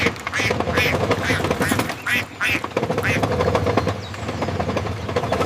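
Ducks quacking repeatedly in short, uneven calls over a low steady rumble.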